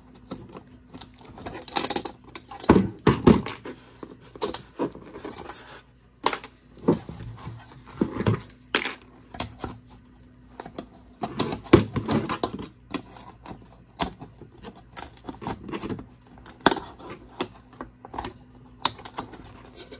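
Needle-nose pliers clicking and scraping against the steel housing, chrome trim ring and spring-wire retaining clips of a 1966 VW Beetle headlight assembly as the clips are pried out: a scattered run of sharp metallic clicks and taps, with a faint steady hum underneath.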